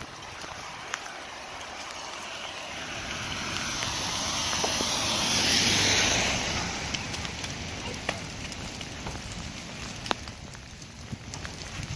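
A car passing on the wet street: tyre hiss on the flooded road swells for several seconds, peaks about halfway through and fades, over a steady wash of rain, with a few sharp ticks.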